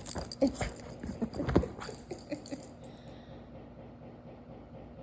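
A dog's claws clicking and tapping on a hard floor in a quick cluster over the first two or three seconds, then dying away.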